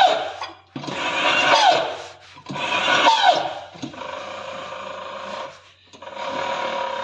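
LG convection microwave oven running with a rubbing, grinding noise and a steady hum, broken by short gaps, with brief falling squeals in the first few seconds. The noise is the fault being diagnosed, which the technician suspects needs a new motor.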